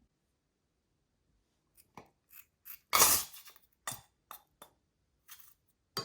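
Slime being squeezed and poked by hand: a string of short sticky crackles and pops that starts about two seconds in, the loudest a half-second crackle about a second later.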